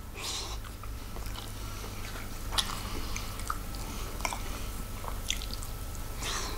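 Close-miked eating sounds of a man chewing mouthfuls of corned beef hash, with short wet mouth clicks and smacks scattered through.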